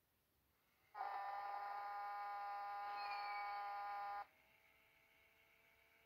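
Sing & Snore Ernie plush toy in its sleep mode, giving a steady buzz for about three seconds. The buzz starts about a second in and cuts off abruptly.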